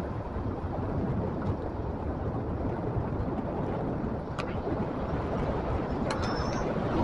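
Steady low rumble of wind and road noise, with a single sharp click about four seconds in and faint high chirps near the end.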